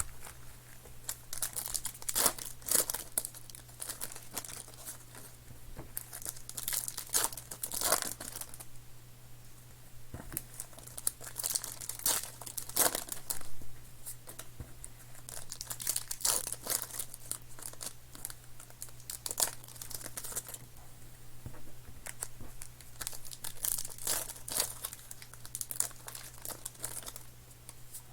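Trading card packs being torn open, their wrappers crinkling in irregular bursts over a faint steady hum.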